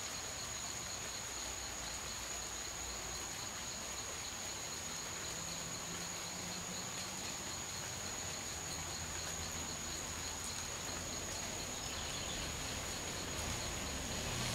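Insects calling steadily: one high, unbroken whine and, below it, a fast pulsing trill, over a low background rumble.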